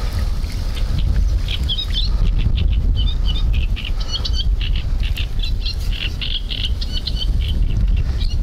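Wind rumbling on the microphone, with a small bird chirping in short, quick phrases, busier from about two seconds in.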